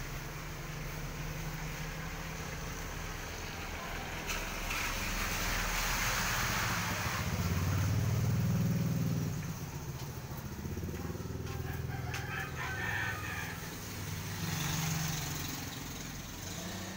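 Outdoor background through an open shopfront: a motor vehicle's engine passing, loudest a little past halfway before fading, with a bird calling.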